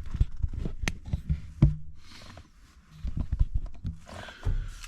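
Scattered clicks and light knocks of hand tools and car parts being handled.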